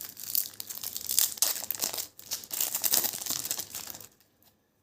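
Plastic wrapper of a Slam Attax trading-card pack crinkling and tearing as it is opened by hand. The crackling stops about four seconds in.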